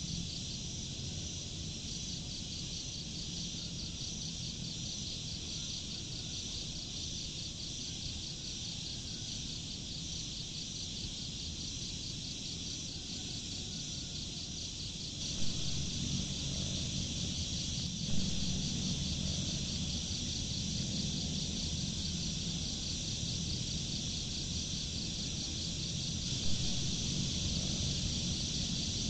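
Crickets chirping in a fast, steady pulsing trill, over a low rumble of outdoor background noise that grows louder about halfway through, with a few faint knocks.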